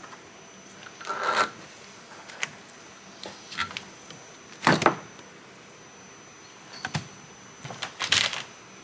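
A handful of separate short knocks and rattles, about five spread irregularly across the few seconds, over a steady low background hum.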